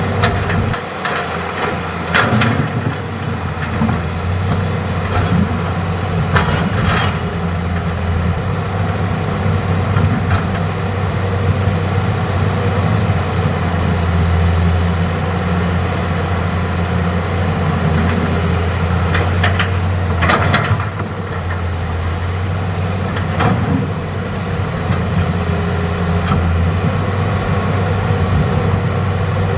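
Hitachi hydraulic excavator's diesel engine running steadily at working speed, with a few sharp knocks at intervals during the digging and loading of rock.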